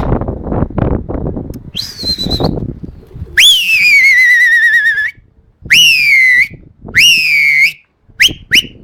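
A person whistling loudly in a series of calls: a short high note, then a long whistle that falls and wavers, two shorter whistles that rise and fall, and two quick short ones near the end. Before the first whistle there is some rustling and handling noise.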